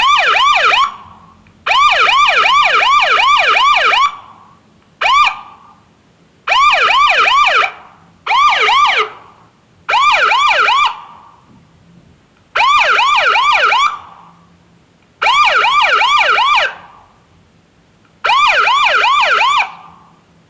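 Police siren in short bursts of fast yelp, its pitch sweeping up and down about three times a second. It starts and stops about nine times, each burst lasting one to two seconds and trailing off quickly.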